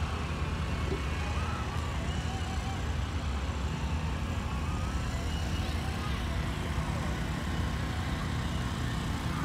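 Steady low rumble of big-rig diesel truck engines idling, with faint voices in the background.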